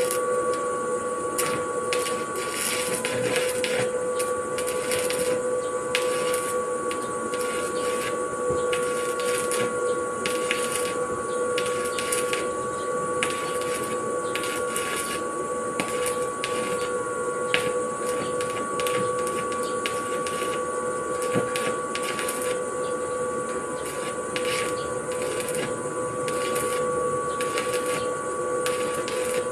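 Electric arc welding: the arc crackles and sizzles irregularly and without a break as a steel railing post is welded, over a steady hum of a few fixed tones.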